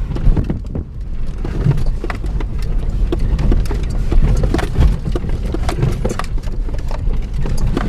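Vehicle crawling over a badly potholed dirt road: a steady low rumble with constant jolts, knocks and rattles as the wheels drop into and climb out of the holes.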